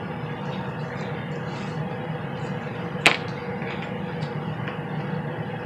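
Steady background hum with a faint even tone, under light handling of fabric and a metal zipper, with one sharp click about three seconds in.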